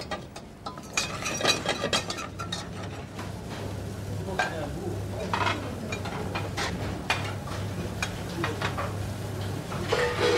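A wire whisk stirring sauce in a stainless-steel saucepan, with pots and pans clinking on the stove, over a steady low hum.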